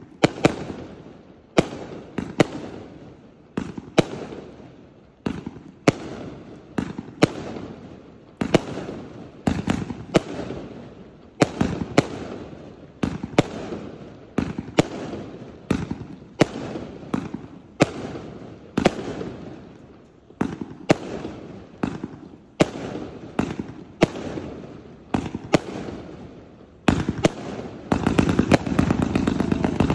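320-shot consumer fireworks cake firing shot after shot: sharp bangs about one or two a second, each fading out. About two seconds before the end the shots come much faster in a dense, louder barrage.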